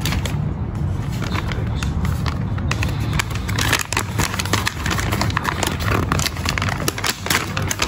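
Brown paper bag rustling and crinkling as it is unfolded and opened by hand, with dense crackles from about three seconds in. A steady low hum runs underneath.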